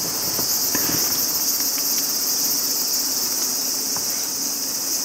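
Steady, high-pitched chorus of insects buzzing.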